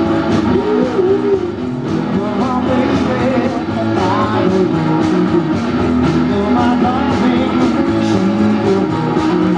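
A garage rock duo playing live and loud: electric guitars over a steady drum beat, with a voice singing.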